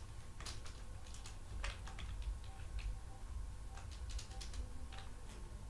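Computer keyboard being typed on: scattered, irregular key clicks, over a low steady hum.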